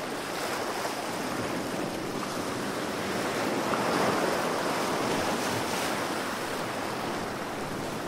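Sea water rushing and sloshing around a camera in the water: a steady noise that swells a little about halfway through.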